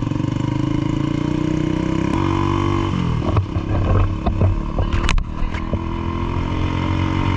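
An engine running steadily, its pitch dropping about two to three seconds in as it slows, with a few knocks and clicks before it settles back to a steady run.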